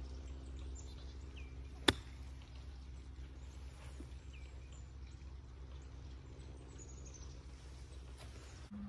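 A single sharp click of a golf club striking the ball on a short chip shot, about two seconds in. Under it runs a steady low machine hum that stops near the end, with a few bird chirps.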